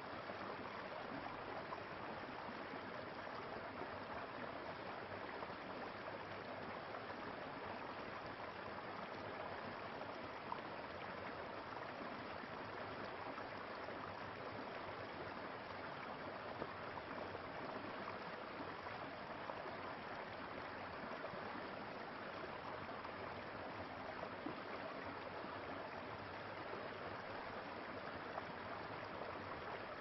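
Waterfall's falling water making a steady, even rushing sound.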